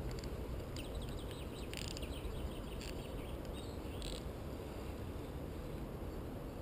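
Lakeside ambience: a steady low rumble with a few short, high bird chirps scattered through it.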